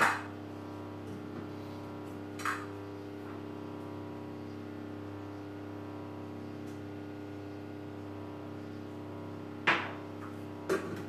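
The lid of a kitchen cooking robot being handled and fitted onto its bowl: a sharp clack at the start, another about two and a half seconds in, and two more near the end as it is closed. Under them is a steady hum made of several held tones.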